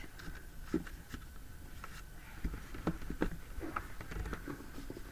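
Scattered light taps and rustles of a cardboard box and its packaging being handled as a tightly packed doll is worked loose.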